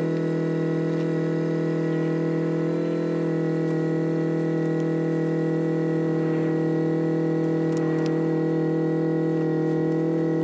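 A steady, unchanging drone of several held tones sounding together, like a sustained synth chord of background music laid over the footage.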